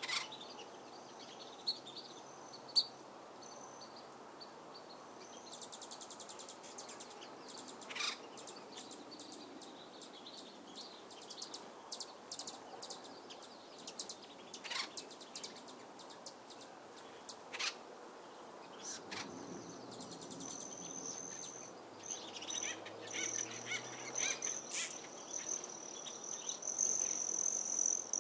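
Wild birds chirping and calling in short, scattered notes over a light outdoor background. About two-thirds of the way in, a steady high-pitched insect trill, like a cricket, joins and grows louder toward the end.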